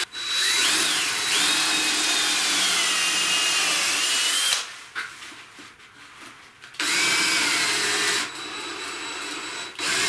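Cordless drill-driver driving wood screws into softwood: a motor whine of about four seconds whose pitch sags and recovers under load, a pause of about two seconds, then a second run that drops in level partway through and stops near the end, as the battery runs flat.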